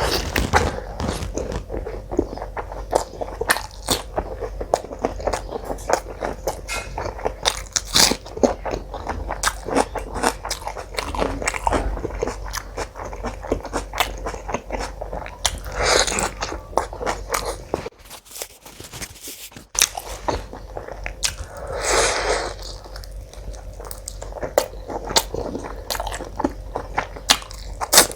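Close-miked mouth sounds of someone eating mutton curry with paratha: steady, irregular wet chewing and smacking clicks. There are two louder, longer slurping or sucking sounds, one just past halfway and one a few seconds later, and a short break between them.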